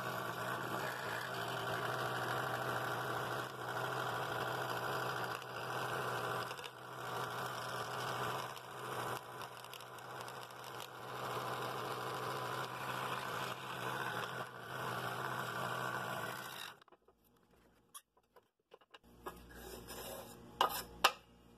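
Scroll saw running with its reciprocating blade cutting through a wooden board, a steady machine sound that cuts off suddenly about 17 seconds in. A few light clicks follow near the end as the cut-out piece is handled on the saw table.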